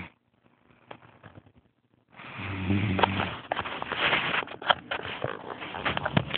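A person snoring: a pause of about two seconds, then a long, rattling snore with a crackly, clicking texture.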